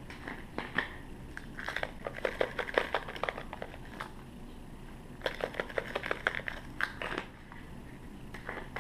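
Spice shaker jars being handled and shaken over a saucepan: two runs of quick rattling clicks, each about two seconds long, with a few single clicks of lids and jars between.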